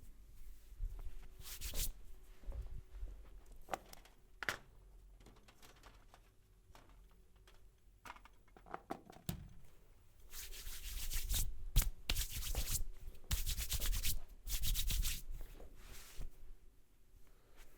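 Hands rubbing a person's hair and scalp during a head massage, close to the microphone: a few scattered scratchy strokes, then from a little past halfway several louder spells of fast, dense rubbing.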